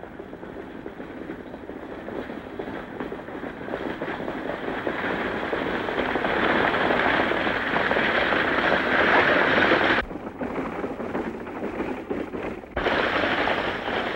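A stagecoach drawn by a galloping team of horses: a dense clatter of hooves and rattling wheels that builds as it comes closer, breaks off sharply about ten seconds in, and comes back loud near the end.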